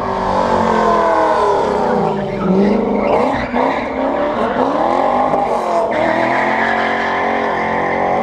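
Chevrolet S-10 pickup fitted with a Black Widow aftermarket exhaust, driven hard through an autocross run: the engine revs up and down repeatedly, its note dropping about two seconds in and climbing again, with tire squeal.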